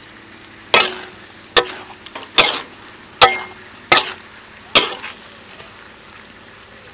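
Metal spatula scraping and knocking against a wok six times, a little under a second apart, as chili peppers in sauce are stir-fried over a faint steady sizzle.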